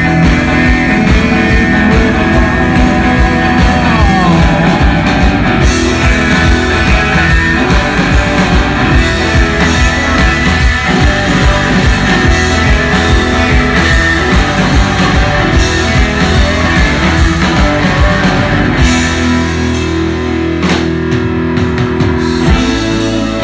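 Rock band playing live and loud through a PA, electric guitars over bass and drum kit in a mostly instrumental stretch, with a guitar bending a note about four seconds in. The low end drops away for a few seconds near the end.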